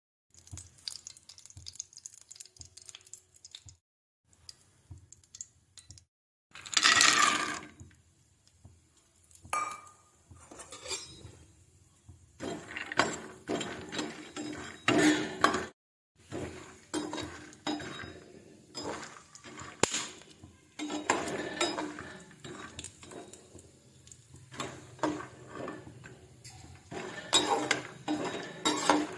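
Kitchen utensils clattering and clinking: a metal spoon or spatula knocking and scraping in metal pans and bowls, in irregular runs, with one louder burst of clatter lasting about a second, about seven seconds in.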